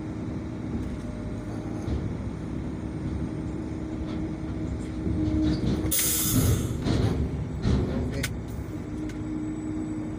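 Dump truck engine running steadily with the PTO engaged to work the dump box. About six seconds in there is a short, loud hiss, with heavier rumbling over the next two seconds.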